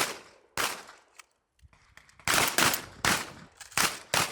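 Shotgun blasts from several shooters firing on command, each a sharp report with a ringing tail. There is one shot at the start and another about half a second later, then after a short pause a quick, ragged run of about six shots overlapping from different guns.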